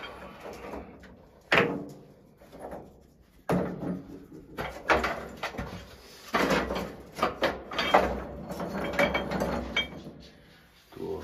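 Scraping and knocking inside a sauna stove's flue opening as soot is cleaned out by hand, among the stove stones. It is a series of sharp knocks, each followed by a rasping scrape, every second or two.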